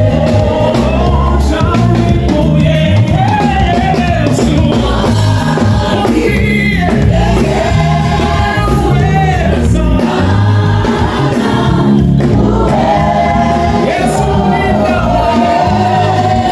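Live gospel band and choir singing through a large stadium PA during a sound check, with bass and drums under held sung notes.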